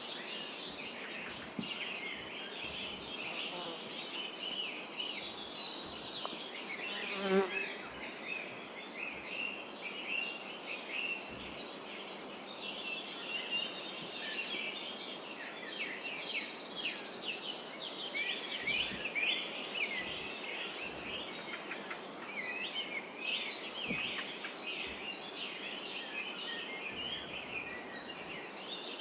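Many small birds chirping together in a dense, busy chorus of short high notes, thicker in the second half. About seven seconds in, a brief sound falls quickly in pitch.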